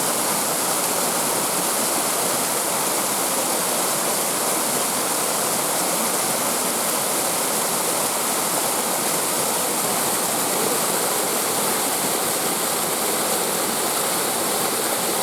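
Large waterfall cascading down, a steady rush of falling water.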